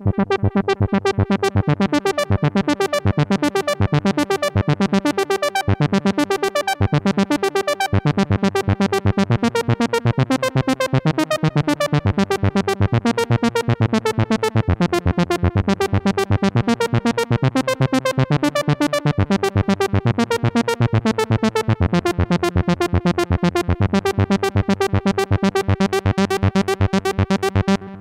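Moog Muse eight-voice analog polyphonic synthesizer on its "Easy Weezey" factory preset, playing a fast, even pulse of short notes, about four a second, over held chords. Its brightness swells and dips over the first several seconds as the filter cutoff is turned by hand, and the notes stop near the end and ring off.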